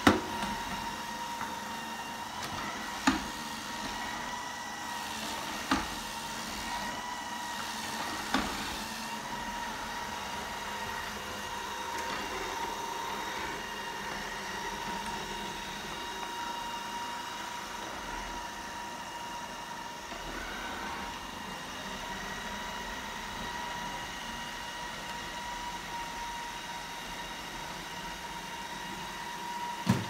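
Shark ION RV700 robot vacuum running across a tile floor, its motor giving a steady hum with a high held tone. A few sharp knocks come in the first several seconds and once more at the end.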